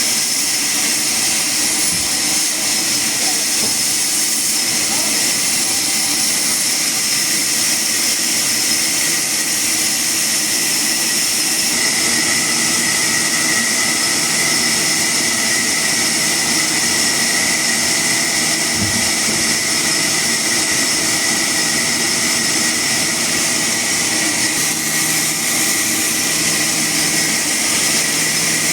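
Woodworking machine running steadily: a loud, even hiss with a steady whine that grows stronger about halfway through.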